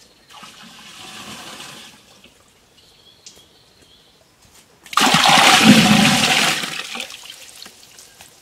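Water pouring and splashing into a dug earthen tank, loud for about two seconds from the middle of the clip, then fading away. A fainter rush of water comes just after the start, with a short high bird note in between.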